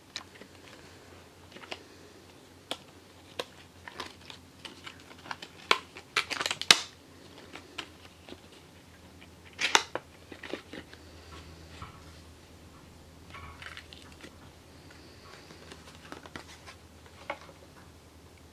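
Stiff clear plastic blister packaging being opened by hand: irregular sharp clicks and crackles, loudest in a cluster about six to seven seconds in and again near ten seconds, then quieter handling and rustling.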